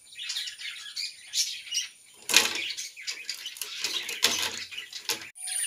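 Birds chirping repeatedly, with a brief clatter about two seconds in as circuit boards are handled on a table.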